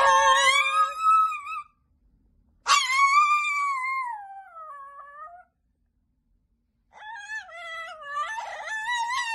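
A small dog howling, set off by a woman's singing: several long drawn-out howls with pauses between, the longest falling in pitch and a wavering one near the end.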